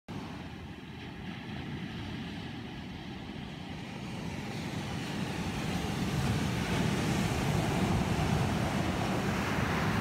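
Wind rumbling and buffeting on the phone's microphone at the beach: a steady rush that grows gradually louder.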